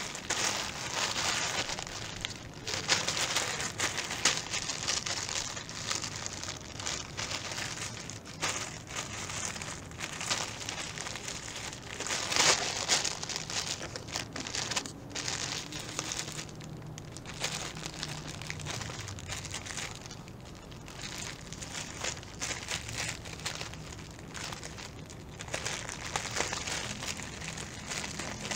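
A plastic courier mailer bag crinkling and rustling as hands handle it, in irregular crackles with many sharp clicks, the loudest about twelve seconds in.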